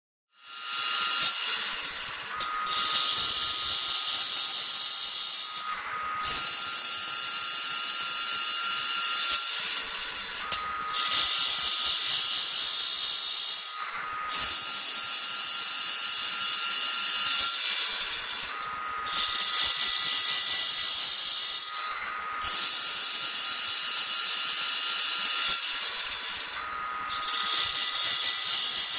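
Kaindl FMS CNC saw-blade sharpening machine grinding the teeth of an HSS circular saw blade: a high hissing grinding pass of about three to four seconds, then a short break, repeating about every four seconds.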